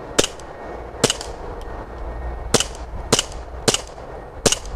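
Remington 1911 RAC CO2 BB pistol firing six semi-automatic shots at an uneven pace, each a sharp crack from the gas release and blowback slide.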